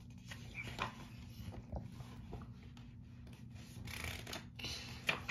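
Page of a paperback picture book being turned by hand: soft paper rustling with small handling clicks, the fullest rustle about four seconds in and a sharp tick just before the end.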